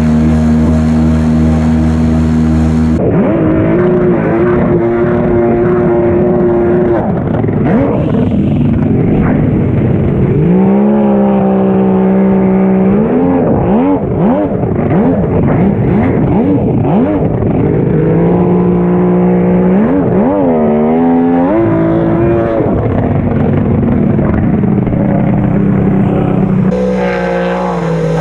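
Jet ski engine running and revving: its pitch climbs, holds steady at several speeds and drops again, with footage cuts about three seconds in and near the end.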